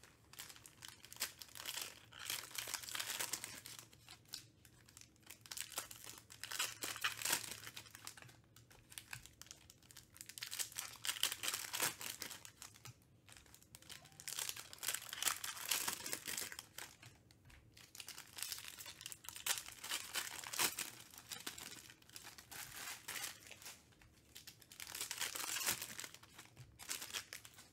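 2021 Panini Chronicles Baseball card-pack wrappers being torn open and crinkled by hand, in bursts of crackling every three to four seconds as pack after pack is opened.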